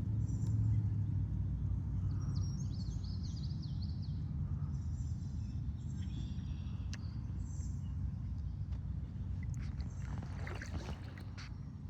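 Water sloshing and swirling around a person's legs as he wades through floodwater about three feet deep, with a few sharper splashes about ten seconds in.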